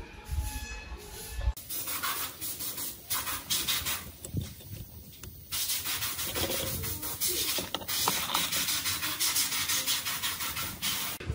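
Hand sanding: quick repeated rubbing strokes of an abrasive, with a short pause about four seconds in before the strokes resume.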